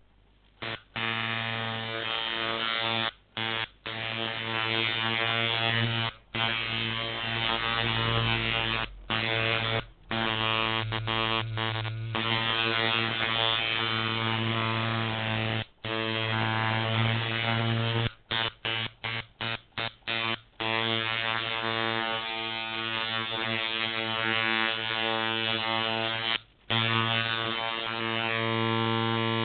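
Iron coil liner tattoo machines running with a steady low buzz. The buzz stops and starts again many times, with a quick run of short stops and starts about two-thirds of the way through.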